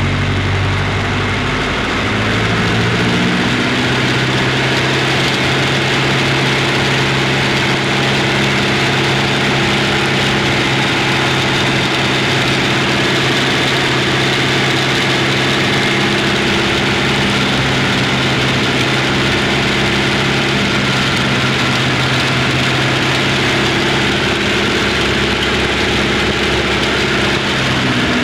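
Piper Cherokee's piston engine and propeller running steadily, heard inside the cockpit through a microphone in the pilot's headset ear cup. The engine note steps up about two seconds in and drops back near the end.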